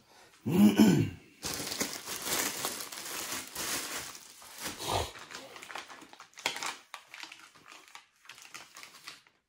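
Crinkling and rustling of a wrapper or bag being handled for about three seconds, after a short voice-like sound near the start, then lighter scattered handling noises.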